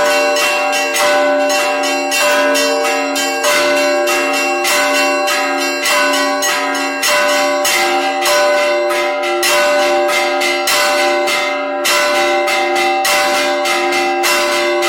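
Russian Orthodox cathedral bells rung in a continuous peal: smaller bells struck rapidly, several strikes a second, over the long ringing tones of larger bells.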